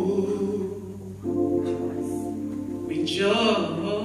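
Slow singing with long held notes, moving to a new held note about a second in and bending in pitch near the end.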